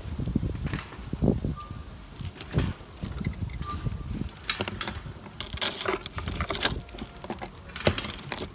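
Metal chain clinking and rattling against a wooden gate post as it is wrapped and pulled tight to lock the gate, in scattered clicks with the loudest burst of jangling about two thirds of the way through.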